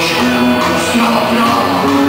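Rock band playing live and loud, electric guitar and drums together in a steady, unbroken passage.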